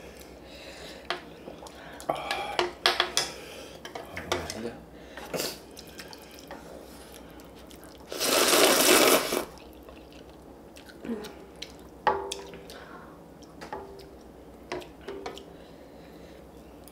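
Ramen eating sounds: utensils clicking against the dishes and the metal tray in scattered taps, with one loud slurp of noodles lasting about a second and a half, about eight seconds in.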